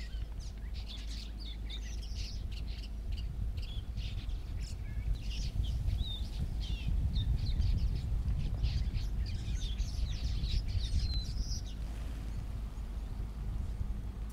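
Small birds chirping in quick short calls, busiest in the middle, over a steady low rumble.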